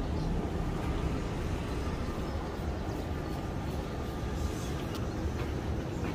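Steady low rumble and hiss of the surroundings at a light-rail tram stop, with no single event standing out.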